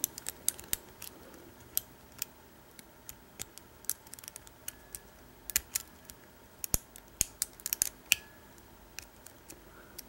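Small, irregular metallic clicks and taps of a lock pick working the pin stacks inside an American Lock 1100 padlock's cylinder under tension, coming in short clusters. The pins are being set one at a time, bringing a little turn on the core.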